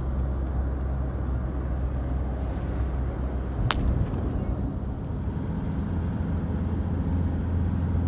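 Engine and road noise inside a moving car's cabin, a steady low drone, with a single sharp click about three and a half seconds in.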